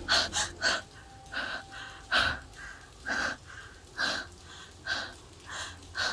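A person breathing heavily and fast, one short breath about every half second.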